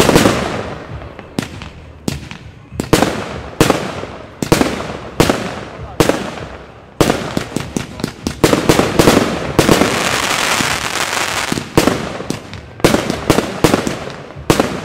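Aerial fireworks going off in steady succession, each bang trailing off in an echo. For a couple of seconds past the middle the shots come thick and run together into a continuous crackling hiss.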